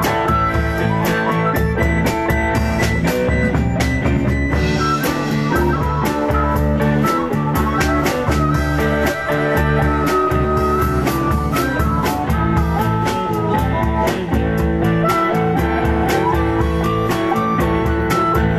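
Live blues band playing without vocals: guitar over a drum kit keeping a steady beat.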